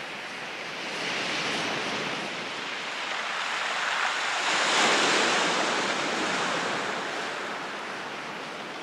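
Rushing, surf-like noise of a logo sound effect. It swells to a peak about five seconds in, like a breaking ocean wave, then slowly eases off.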